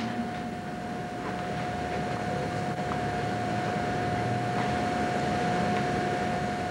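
Steady hum and hiss with a constant high whine, broken by a few faint knocks.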